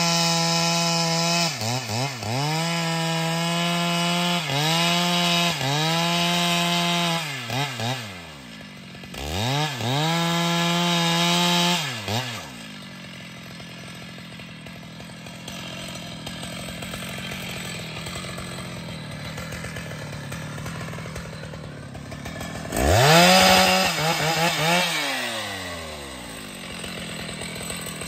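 Stihl MS 881 two-stroke chainsaw at full throttle, cutting through a large log, with its revs dipping briefly several times. About twelve seconds in it drops to idle, revs once briefly near the end, then goes back to idling.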